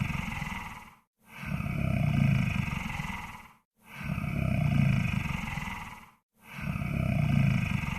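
Monster snoring sound effect: deep, rough growling breaths repeating steadily about every two and a half seconds, with brief silent gaps between them.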